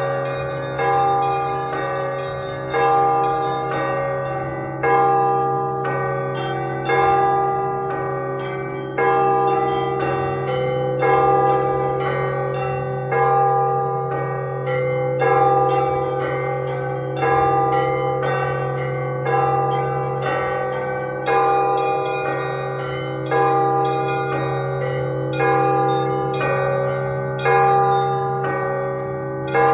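Orthodox church bells rung as a continuous chime: a large bell struck about every two seconds, its low hum sustained underneath, with smaller bells struck rapidly in a repeating pattern between the strokes.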